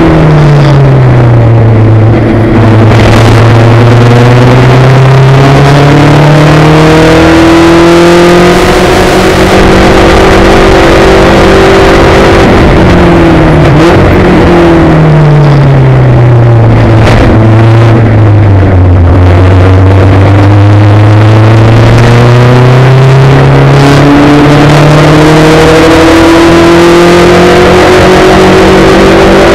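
Onboard sound of a Spec Racer Ford's engine at racing speed, loud: its pitch falls at the start as the car slows, climbs slowly over several seconds under throttle, drops sharply about halfway through, then climbs again. A steady rush of wind over the open cockpit runs underneath.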